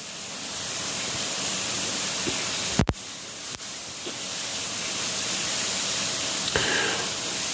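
Steady, loud hiss with no tone in it, broken once by a short thump about three seconds in.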